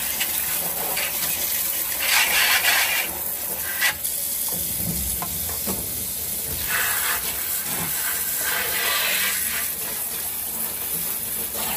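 Water running from a tap and splashing, with several louder surges.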